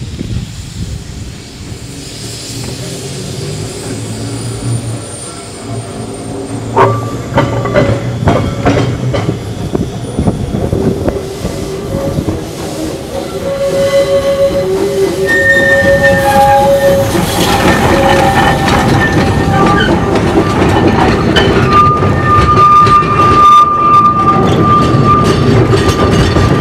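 Narrow-gauge steam locomotive and its wooden coach approaching and passing close by, growing steadily louder. The wheels click over the rail joints from about a quarter of the way in, and high steady squeals from the wheels, at changing pitches, come through the second half.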